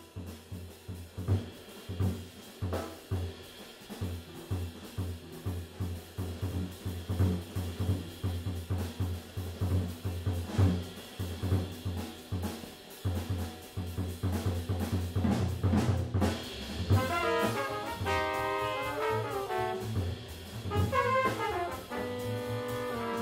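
Live jazz quintet: drum kit and bass playing a busy groove, then trumpet, trombone and saxophone come in with the melody about two-thirds of the way through.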